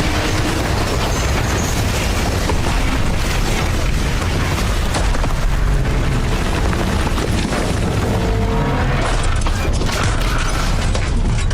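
Train crash sound effect: a continuous heavy rumbling crash with many metal impacts and brief metallic scraping tones, loud throughout.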